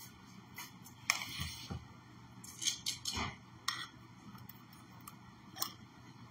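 Metal spoon clinking and scraping against a stemmed wine glass as ice cream is scooped into it, with a few duller knocks from handling on the counter: irregular sharp clicks, the busiest stretch between about one and four seconds in.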